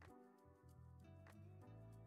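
Very quiet background music: a run of notes changing every half second or so.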